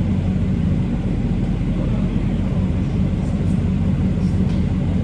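2022 Dodge Charger Scat Pack's 6.4-litre (392) HEMI V8 running steadily with a low, even rumble.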